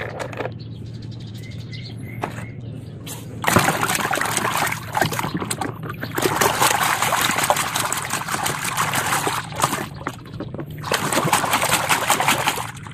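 Wet, muddy sand squelching and sloshing as a hand digs a plastic toy bulldozer out of it. The sloppy, crackly mud noise starts about three and a half seconds in and goes in spells with a couple of short breaks.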